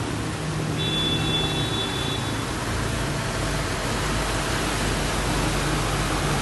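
Steady hiss of heavy rain and floodwater, with the low, steady hum of a tanker truck's diesel engine as it drives through the flooded street. A thin high tone sounds for about a second and a half near the start.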